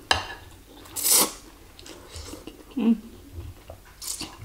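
Thin noodles being slurped up from a bowl of bakso soup: a few short noisy sucking slurps, the loudest about a second in and another just after four seconds, with a short low hum from the eater near three seconds.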